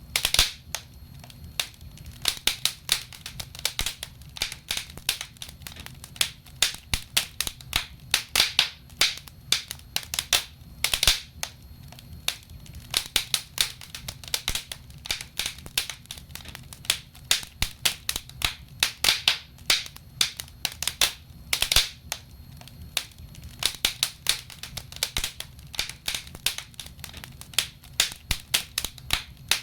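Wood fire burning in a fireplace: logs crackling and popping in irregular bursts of sharp snaps over a low steady hiss of the flames.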